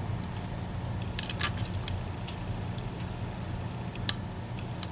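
Scattered small clicks and ticks of lock picks and a tension tool working the sliders inside an EVVA ICS lock cylinder, over a steady low hum.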